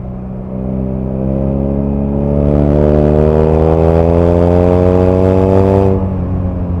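BMW R nineT's boxer twin accelerating in one gear, its note climbing steadily for about five seconds and getting louder. Near the end the throttle is shut and the note drops suddenly.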